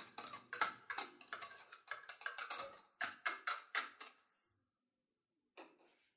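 Wire whisk scraping and tapping against the inside of a plastic bowl to knock brown sugar out into a pot: a fast, irregular run of light clicks that stops about four seconds in, then one brief soft knock near the end.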